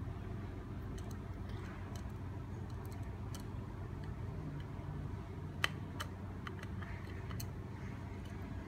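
Scattered small clicks and taps, the sharpest about halfway through, from handling a hard drive and the video recorder's case, over a steady low hum.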